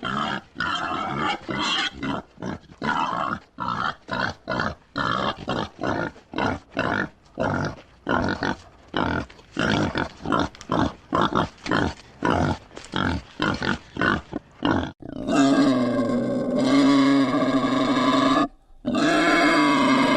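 Wild boar grunting in a quick run of short grunts, about two a second, then breaking into two long, loud squeals, one after the other.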